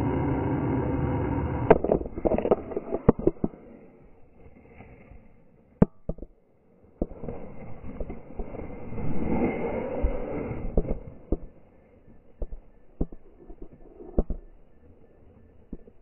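Juvenile turkey vultures hissing, slowed down so the hiss sounds deep and drawn out. The first hiss stops sharply about two seconds in. A second long hiss swells from about seven to eleven seconds in, with sharp knocks scattered between.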